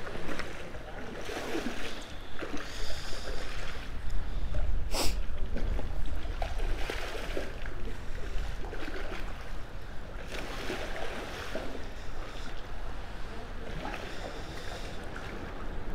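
Shallow river water flowing over rocks, with a steady low rumble underneath and a single sharp click about five seconds in.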